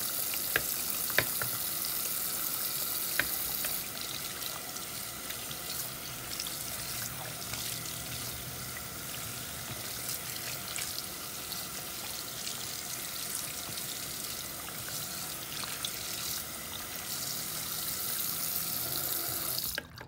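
Tap water running and splashing into a sink as a doll's hair is rinsed under the stream, with a few sharp clicks in the first few seconds. The flow gets somewhat quieter about four seconds in and stops abruptly near the end.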